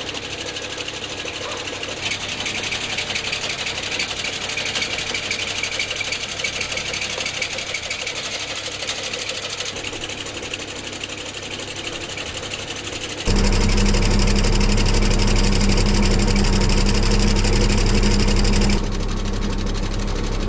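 Skid steer engine running under load while its hydraulic sickle bar mower's reciprocating cutter bar chatters rapidly through hedge and branches. The engine sound jumps abruptly louder about two-thirds of the way in and drops back a little near the end.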